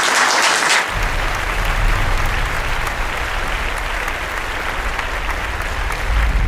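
Audience applauding. About a second in, the crisp clapping turns duller and more even, with a low rumble underneath.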